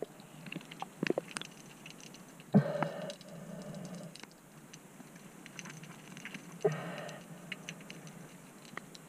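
Underwater sound around a spearfishing diver: scattered faint clicks and ticks, with three short bubbling bursts about four seconds apart.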